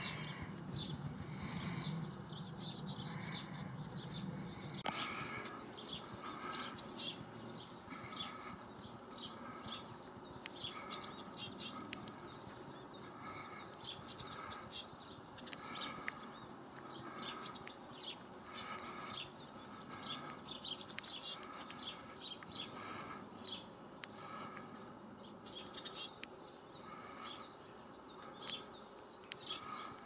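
Tits calling around a nest box with young about to fledge: clusters of high, rapid chirps repeated every couple of seconds. A faint low hum sits under the first few seconds.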